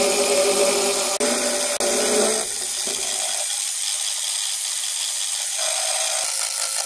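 Benchtop milling machine with an end mill cutting an aluminium block held in a vise: a steady, bright cutting noise with the machine's hum under it, the hum dropping away about two and a half seconds in.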